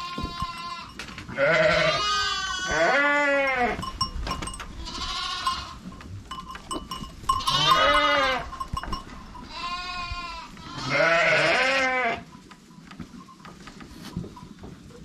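Sheep bleating again and again, about seven calls at differing pitches, some high and some lower.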